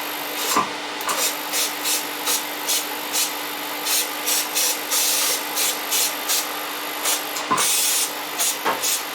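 Hobby powder coating gun puffing powder in short bursts of hiss, about two or three a second, over a steady hum, with a few sharp clicks.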